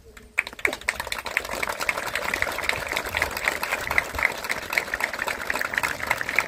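Crowd applauding, a dense patter of clapping that breaks out suddenly about half a second in and carries on steadily.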